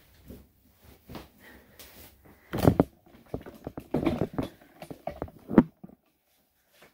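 Handling noise as a camera is carried and set down in a small tiled room: irregular bumps, rustles and knocks, with the loudest thumps about two and a half and five and a half seconds in.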